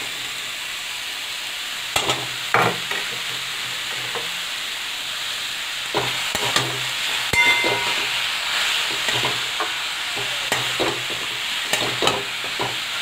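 Momo filling of crumbled soya, onion, carrot and cabbage sizzling as it is stir-fried in oil in a kadhai. A metal spatula stirs it with a steady hiss underneath, scraping and knocking against the pan every second or two.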